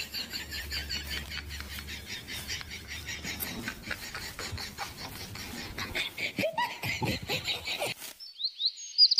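Tall green grass being cut with a hand sickle and pulled by hand: a quick run of rustling, tearing snips.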